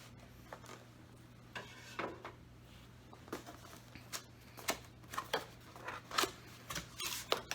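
Scissors cutting through packing tape on a cardboard box: a string of sharp snips and short scrapes, coming faster and louder in the second half.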